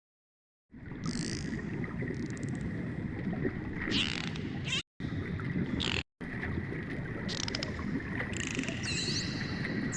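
Sea life sound effect: a rumbling, underwater-like wash with high gliding whistles and short rapid click trains over it. It starts under a second in and cuts out briefly twice about halfway through.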